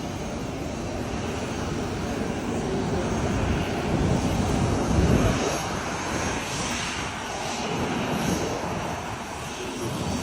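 Aeroplane engines running, a steady rumble and rush that swells to its loudest about four to five seconds in, then eases off.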